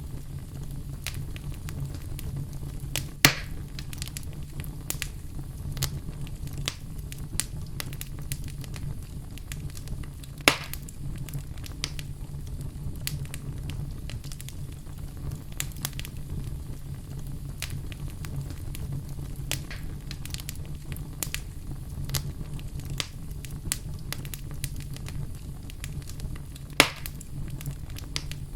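Wood fire burning in a fireplace: a steady low rumble of flames with frequent small crackles and three loud, sharp pops.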